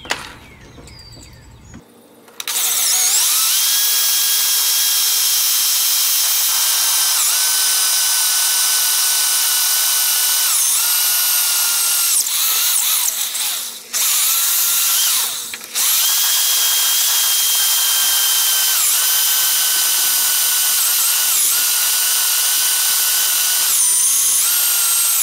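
Electric drill with a 3/8-inch bit drilling mounting holes through a mower deck. The motor starts about two seconds in and runs as a loud, steady whine, its pitch sagging several times as the bit bites. It stops briefly twice around the middle.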